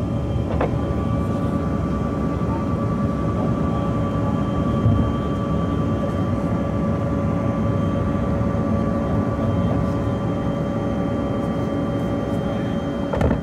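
Jet airliner engines at takeoff power, heard inside the passenger cabin: a steady rush with a constant whine over it as the plane lifts off and climbs. A brief knock comes about half a second in and another just before the end.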